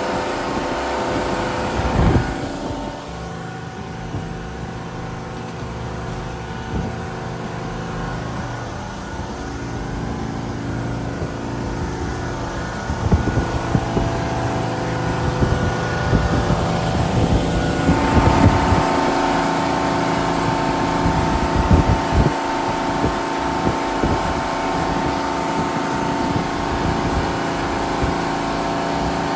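Chrysler Crown M47S 265 cu in flathead six-cylinder marine inboard running steadily with the boat under way at speed, heard close through the open engine hatch, with wind on the microphone. A brief thump about two seconds in, and the engine's tones shift around eighteen seconds in.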